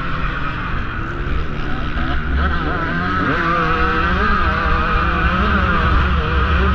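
KTM XC-W 150 two-stroke enduro engine running hard under racing throttle, heard from the rider's helmet. Its pitch rises and dips with throttle and gear changes, with a steeper rise about two to three seconds in.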